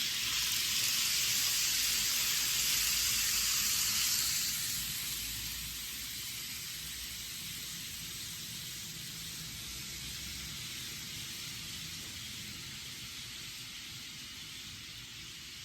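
N-gauge model 500 Series Shinkansen running on track: a steady rushing hiss of wheels and motor over a low hum, which eases off about four seconds in and then fades gradually.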